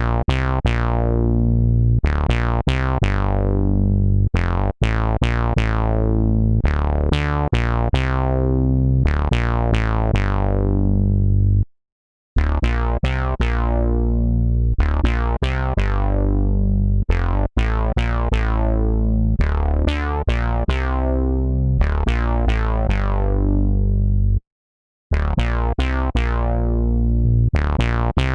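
Software synthesizer playing a demo riff: short plucked notes whose brightness closes down quickly after each attack, over steady bass notes. The phrase stops for a brief silence twice, a little before halfway and near the end.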